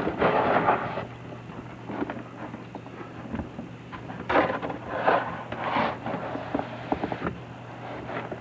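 Crunching and scraping of packed snow in a few bursts about a second long, as the snow pile is dug out, over a steady low hum.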